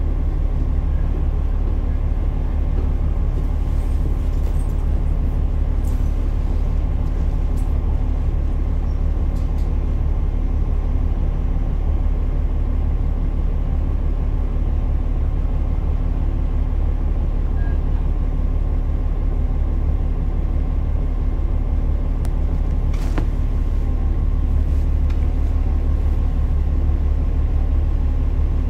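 JR KiHa 47 diesel railcar running along the line, heard from on board: a steady low rumble of the diesel engine and wheels on the rails, with a brief click or two from the track.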